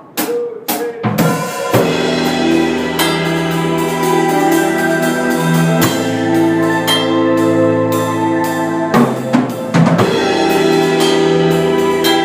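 Instrumental band intro: a few sharp drum hits, then the full band comes in with drum kit (snare and bass drum) under steady held chords. Near the end the chords drop out briefly for a drum fill before the band picks up again.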